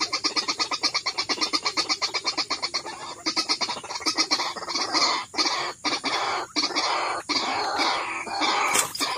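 White-breasted waterhen calling: a fast run of repeated notes, about six a second, that after about three seconds breaks into irregular, louder calls with short gaps between them.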